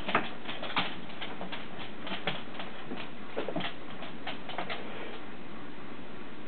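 Light, irregular clicks and taps, several a second, from a kitten's paws and claws scrambling on a bar stool as it plays; they stop about five seconds in.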